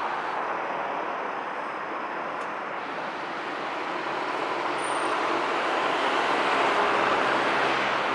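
Steady road traffic noise with a Haruka limited express electric train running along an elevated railway track, the sound growing louder through the second half.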